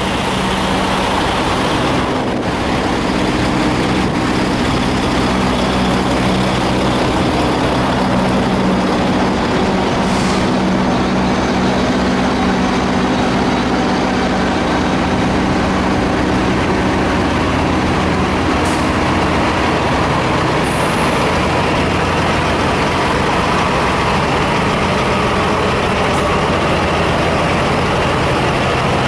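Diesel semi-truck engines idling with a steady low drone.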